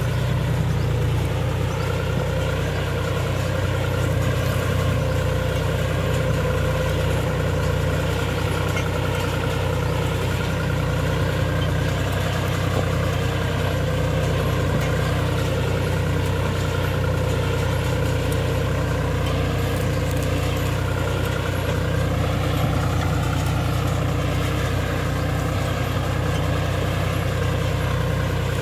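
John Deere 5105 tractor's three-cylinder diesel engine running steadily under load as it pulls a mouldboard plough through the soil, its note rising slightly late on.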